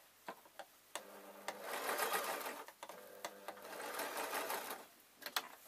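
Singer electric sewing machine stitching through fur fabric. It runs in two stretches, from about a second in to near the end, with a brief pause between them. A few light clicks come before and after the runs.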